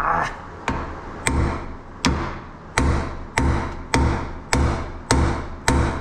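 Hand hammer striking a steel pickle fork wedged into the pitman arm joint: about ten sharp metallic blows, one every half second or so, each with a short ring. The fork is already bottomed out, so the blows are not spreading the joint apart.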